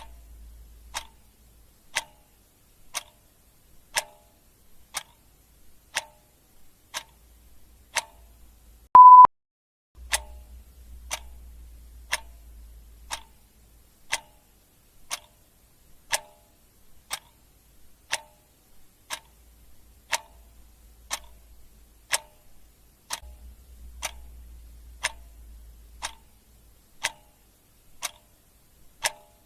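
Clock ticking steadily, one tick a second. About nine seconds in, a single short steady beep sounds, louder than the ticks.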